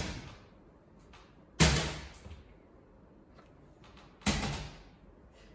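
Three plastic drink bottles, two 500 ml and one 2 litre, knocked over one at a time onto a hard floor. One falls right at the start, one about a second and a half later and one near four seconds in. Each is a sharp clatter that dies away within half a second.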